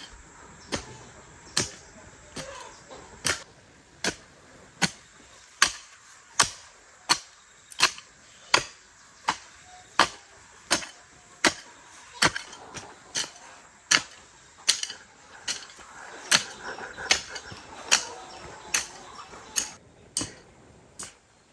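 A steady series of sharp knocks or chops, a little over one a second, stopping shortly before the end.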